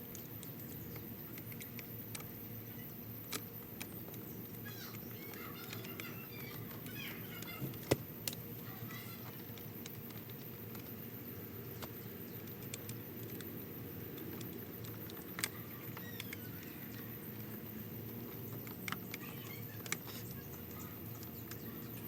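Scattered sharp clicks and light rattles over a steady low hum, with the loudest click about eight seconds in and a few brief faint chirps in between.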